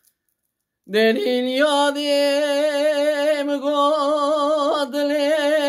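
A man singing solo and unaccompanied, starting about a second in and holding long, wavering notes.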